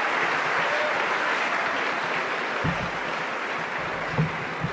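Audience applauding, the applause slowly dying down, with a few dull thumps near the end.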